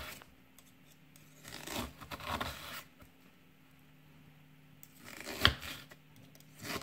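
Paring knife slicing through an onion held on the steel tines of an onion holder, against a wooden cutting board: soft scraping cuts, then a couple of sharp knocks near the end.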